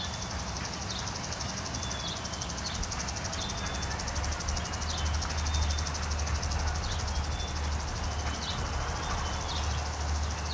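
Freight train cars rolling past: a steady low rumble that swells in the middle, with regular clicking of the wheels over the rail joints.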